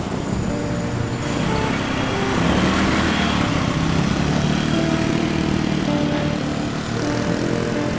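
Street traffic noise with a motor scooter's small engine running close alongside.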